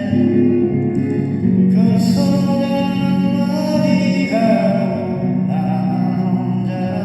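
Music from an older Korean pop song: a melody of long, held notes with vibrato over steady accompaniment.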